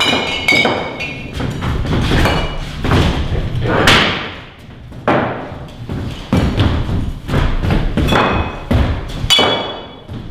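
Irregular knocks and thuds of struck objects, with short ringing tones now and then. The loudest thud comes about four seconds in, followed by a brief quieter stretch.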